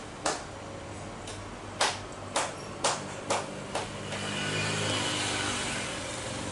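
A series of sharp clicks, about two a second. From about four seconds in, the engines of an Airbus A320 jet airliner at take-off power come in as a rising noise with a faint whine as it accelerates down the runway.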